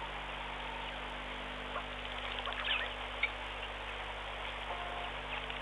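Outdoor waterhole ambience through a low-quality stream microphone: a steady hiss and electrical hum, with a few short faint chirps about halfway through and a brief held tone near the end.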